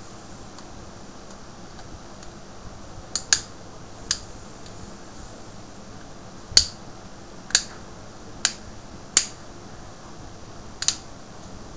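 Sharp plastic clicks from the mobile phone's casing and its snap-in clips as the housing is worked apart and pressed together by hand. There are about eight, at uneven intervals, some in quick pairs, and the loudest comes about six and a half seconds in.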